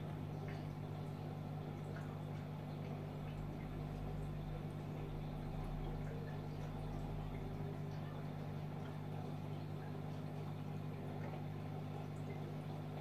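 Steady low hum of a small motor or pump, with faint scattered ticks.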